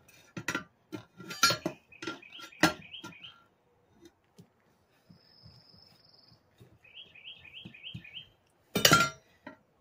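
Metal bar clinking and knocking against the steel wheel rim of a riding-mower tire as the tire is worked onto the rim with hand tools: several sharp knocks, the loudest near the end. Birds chirp in short repeated phrases between the knocks.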